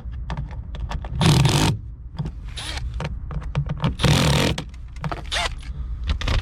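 Handling and tool noise while an aftermarket car speaker is mounted in a door: scattered clicks and two short scraping bursts, about a second in and about four seconds in, over a low steady hum.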